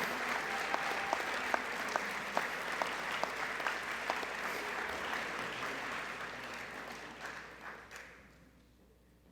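Audience applause in a gymnasium, with several sharp individual claps standing out, fading away near the end.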